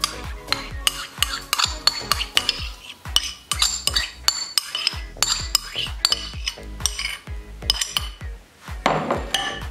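A spoon clinking and scraping against a bowl in quick, repeated strokes, two or three a second, as yogurt is spooned into marinating chicken.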